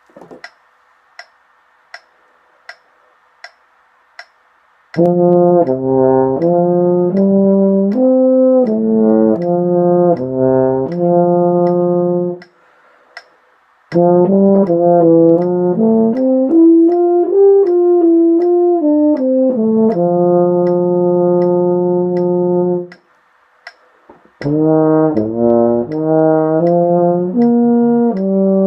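Solo euphonium playing three passages of moving notes in its middle register, with pauses between them. Steady ticks come about every three-quarters of a second, heard plainly in the opening seconds and in the pauses.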